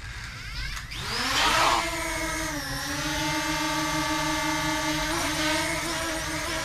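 DJI Mini 2 quadcopter's propellers spinning up about a second in, rising in pitch, then holding a steady whine as it hovers.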